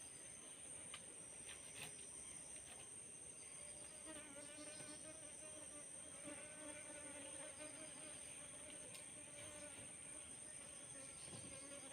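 Faint buzzing of a flying insect, wavering in pitch, starting about four seconds in, over a steady high-pitched insect drone.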